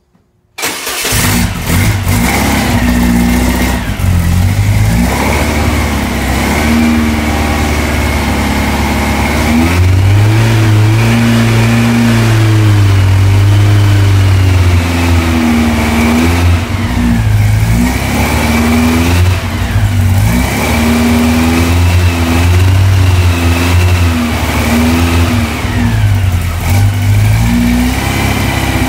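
Freshly built air-cooled VW Type 1 flat-four, a 2054cc 74mm-stroke engine, comes in abruptly about half a second in and runs loud and fast, its speed wavering up and down as the throttle is worked. This is the cam break-in run, where the new cam and lifters are bedded in at raised revs.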